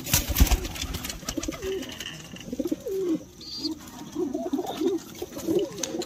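Domestic pigeons cooing in their loft: many short, wavering coos overlapping one after another. A few sharp knocks sound in the first half-second.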